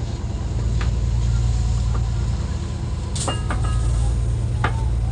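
Fishing boat's engine running with a steady low drone. A few sharp knocks and clicks sound over it about three seconds in and near the end, from fish being handled in the hold.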